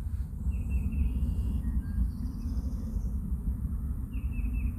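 Outdoor ambience: a steady low rumble with a few short, high bird chirps, one about half a second in and another near the end.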